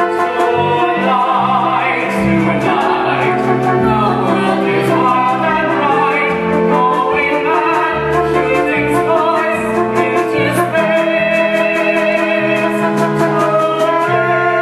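Male and female voices singing a stage-musical love duet with vibrato over instrumental accompaniment, with one long held note in the middle.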